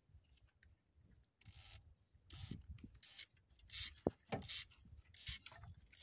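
Fishing gear being handled: about six short, irregular scrapes and rubs with a sharp click near the middle.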